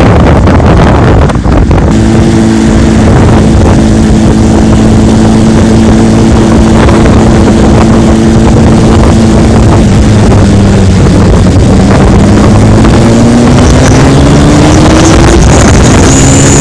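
Motorcycle engine running at a steady cruise under heavy wind buffeting on the microphone. Its pitch drops off past the middle, then rises as the bike speeds up again.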